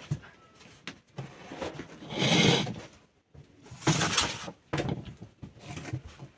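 Irregular scraping and knocking handling noises, the two loudest about two and four seconds in.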